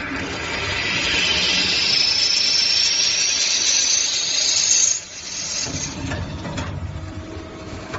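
Spindle cutters of a multi-spindle sliding-table machine cutting a brass water-meter body: a loud cutting noise with a thin high whine that rises slowly in pitch, stopping abruptly about five seconds in. The machine then keeps running more quietly, with a few clicks.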